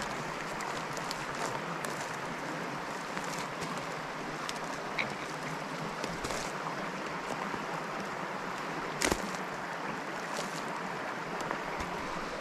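Small woodland trout stream running, a steady rush of water. A few light clicks sound over it, with a sharper snap about nine seconds in.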